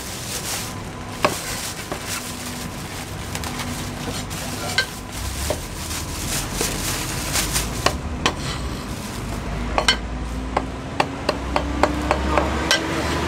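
Food-stall clatter: scattered sharp knocks and clicks of a cleaver and utensils against a wooden chopping block, thickest near the end, over a steady street hiss. A low engine rumble with a slowly rising hum builds in the second half.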